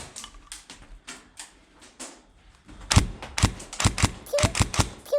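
Airsoft gunfire: a few faint snaps, then from about three seconds in a run of loud, sharp cracks, several a second.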